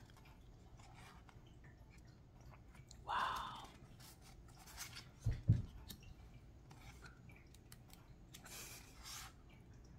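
Quiet handling of a deck of oracle cards: short papery scrapes as cards slide over one another, with a couple of soft low bumps about halfway through.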